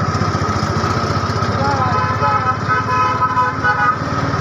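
Auto-rickshaw's small engine running steadily with an even throbbing beat as it drives along. From about one and a half seconds in, a vehicle horn gives a run of short toots.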